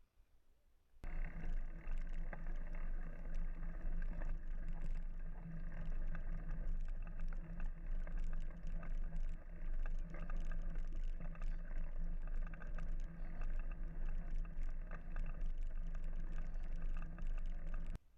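Mountain bike riding along a dirt trail: steady rolling tyre and wind noise with many small rattling clicks. It starts abruptly about a second in and cuts off just before the end.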